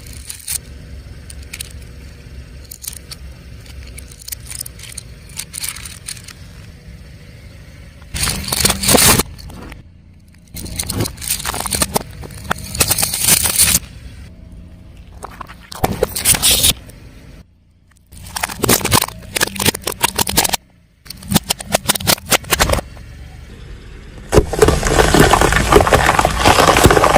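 A car tyre rolling over brittle objects and crushing them, heard as loud crackling and crunching in several separate bursts over a low, steady engine rumble. Some bursts cut off suddenly.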